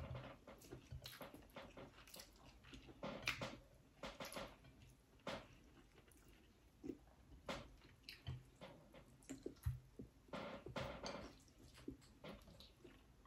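Faint, irregular mouth sounds of two people chewing and lip-smacking while eating fish and rice by hand, with soft scattered clicks of fingers picking at food on plates.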